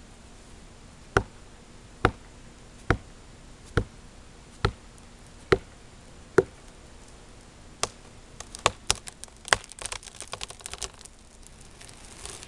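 Seven sharp, evenly spaced knocks, a little under a second apart, followed about halfway through by a quicker, irregular run of lighter clicks and taps.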